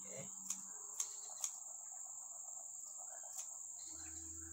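Scissors snipping lime leaves: three sharp snips about half a second apart around a second in, and one more near the end. A steady chorus of crickets runs underneath.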